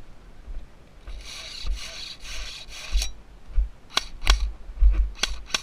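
A rasping, rubbing scrape lasting about two seconds, then four sharp clicks.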